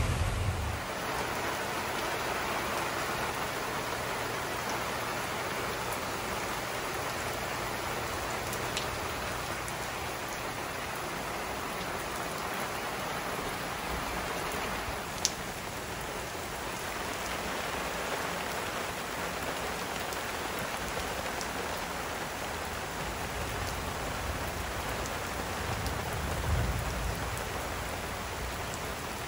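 Heavy rain pouring steadily onto patio pavers and lawn: a dense, even hiss of drops. One sharp tick about halfway through, and a brief low rumble near the end.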